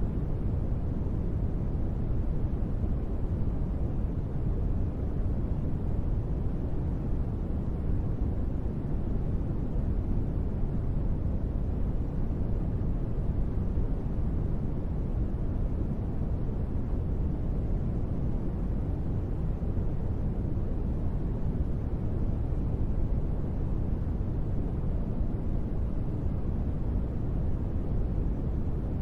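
Steady sleep-aid white noise: an even, unchanging hiss, deep in tone, with most of its weight in the low end.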